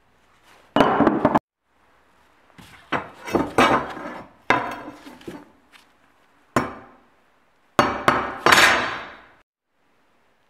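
Steel being struck and knocked, hammer-like, in several separate bursts of clanking, some starting and cutting off abruptly; the last burst, about eight seconds in, is the loudest and longest.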